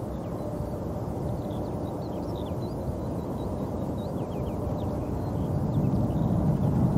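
Low rumble of jet airliner engines, growing louder over the last couple of seconds, with small birds chirping faintly above it.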